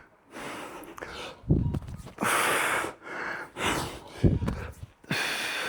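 A man breathing hard through a set of exercise reps: a series of forceful, noisy exhales and gasps about once a second, with a couple of short low thuds among them.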